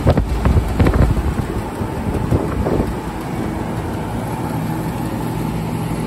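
Carrier 10-ton split-system heat pump with a semi-hermetic compressor running in cooling mode. Gusty air rushes over the microphone above the condenser fan for the first few seconds, then the unit settles into a steady hum.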